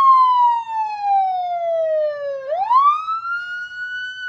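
A police-style siren wailing: one clear tone slowly falling in pitch, then sweeping quickly back up about two and a half seconds in and holding high.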